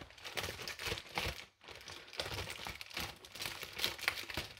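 Crinkling and rustling in irregular bursts as a rolled paint-by-numbers canvas and its paper wrapping are handled.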